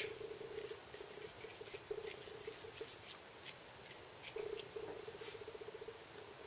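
Faint soft pattering and light ticks of bare hands rolling a moist minced-beef mixture between the palms into small sausage shapes.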